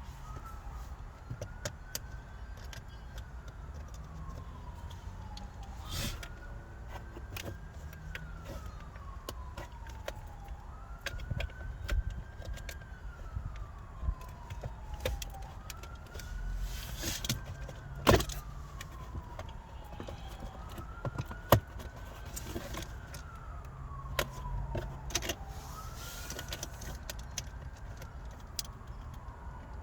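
A faint siren wails in the background, rising and then falling slowly and repeating about every five seconds. Over it come scattered clicks and knocks, two of them sharp and loud about two-thirds of the way through.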